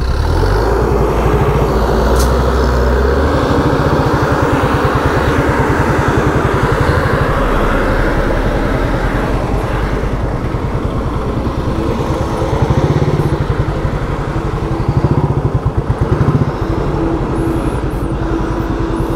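Motorcycle engine running as the bike is ridden, a steady fast pulsing under road and wind noise, its low pitch shifting a few times.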